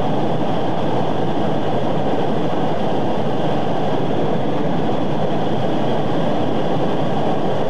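Steady, even rushing rumble with no distinct events or changes.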